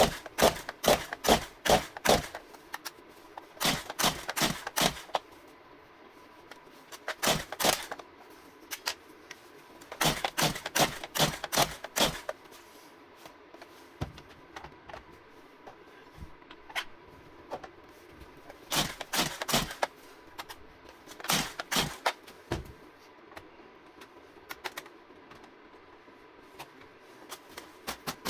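Stihl MS 170 two-stroke chainsaw being pull-started again and again: about six bursts of rapid clicking from the recoil starter and the engine turning over, with pauses between them. The engine never catches, the sign of the saw's no-start condition.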